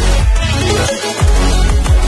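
Electronic dance music with a heavy bass line and repeated falling bass sweeps.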